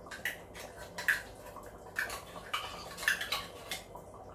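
A metal spoon clinking and scraping against a small tin of tomato purée and the rim of a stainless steel pot: a run of irregular sharp clinks and scrapes, the sharpest a little after one second and at about three seconds in.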